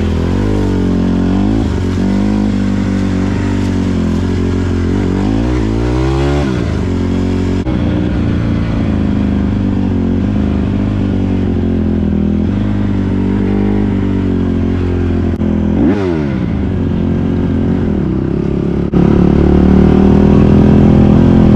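Honda CRF150R dirt bike's four-stroke single-cylinder engine running under way, its pitch rising and falling as the throttle is blipped, with a few quick revs up and back down. It is louder in the last few seconds.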